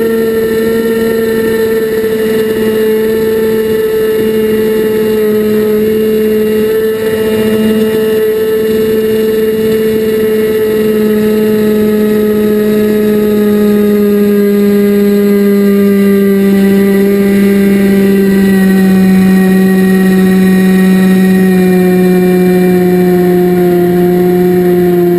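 FPV model aircraft's motor and propeller running with a steady, high hum, its pitch sinking slowly lower over the whole stretch.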